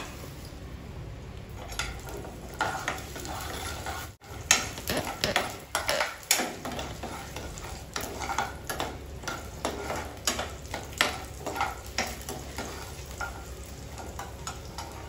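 Peanuts, roasted gram dal and mustard seeds sizzling in a little hot oil in a nonstick kadai, stirred with a steel spoon. Repeated clicks and scrapes of the spoon against the pan start about two seconds in.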